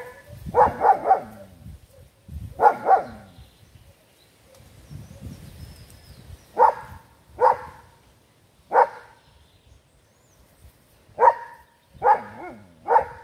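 Puppies barking in short high yaps, often two or three close together, with low growling in between, while they tug-of-war over a brush in play.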